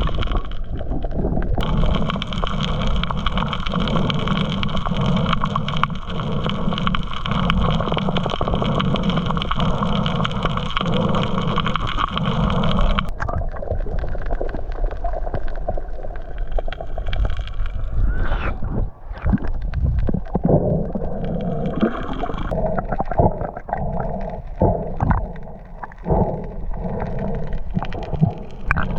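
A boat motor running steadily, cut off about halfway through. Irregular water gurgling and sloshing follows.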